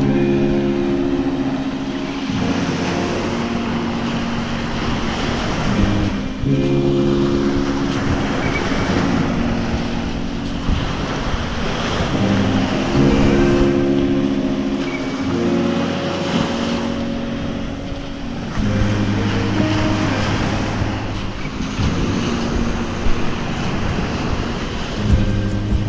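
Background music of slow, sustained chords that change every few seconds, over the wash of small waves on a sandy beach.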